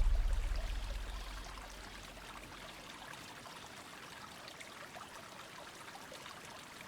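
A low, deep tone fades away over the first two seconds. It leaves a faint, steady background of trickling running water.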